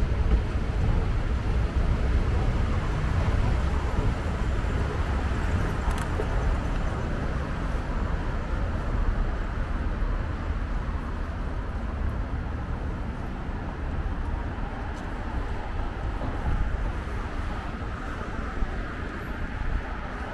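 City street ambience: a steady low rumble of traffic, easing off slightly over the stretch, with voices of passers-by in the background.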